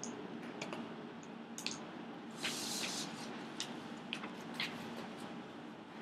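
Quiet room tone from a narration microphone, with scattered soft clicks and one short hiss about two and a half seconds in.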